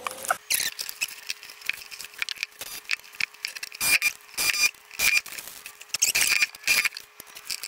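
DeWalt cordless drill driving screws in many short bursts, fastening a plastic vent-fan housing to the floor, with clicks and scrapes of handling between the bursts.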